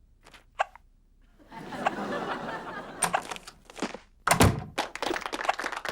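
Cartoon sound effects: two short squeaks in the first second, a noisy clattering stretch, then a loud heavy thunk about four seconds in, followed by a quick run of knocks.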